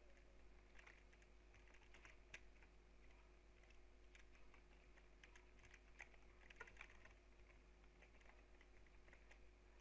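Faint, irregular keystrokes on a computer keyboard as text is typed, over a low steady hum.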